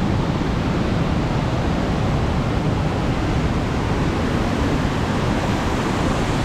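Rain-swollen mountain river rushing through rapids below a waterfall: a loud, steady roar of water with no let-up.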